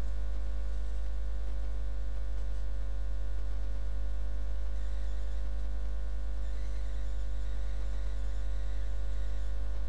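Steady electrical mains hum: a strong low drone with a stack of fainter, higher steady overtones, unchanging throughout.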